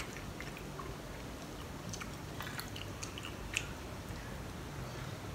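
Faint chewing and mouth sounds of a person eating gajar ki kheer (carrot pudding) from a spoon, with scattered small clicks.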